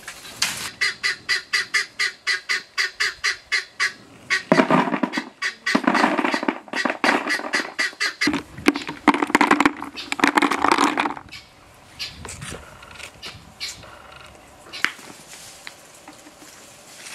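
Farmyard fowl calling: a fast run of short clucking calls, about four a second, then three loud, drawn-out calls between about four and eleven seconds in, and quieter scattered sounds after that.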